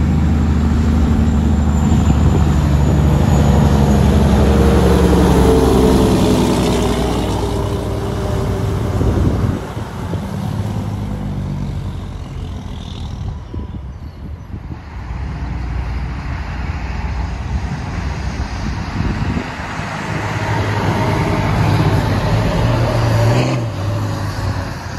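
Diesel semi-truck engines as tractor-trailers drive by: one truck runs loud for the first several seconds, its engine note falling in pitch as it passes. Quieter road traffic follows, and a second truck goes by close near the end.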